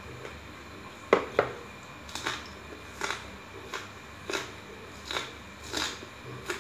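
Close-up chewing and mouth smacks as food is eaten by hand, a short wet smack roughly every second. Two sharp clicks about a second in are the loudest sounds.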